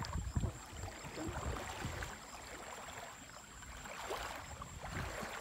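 Muddy river water sloshing and trickling around a wading man's legs as he hauls a cast net in through the shallows, with a few low thuds in the first half-second.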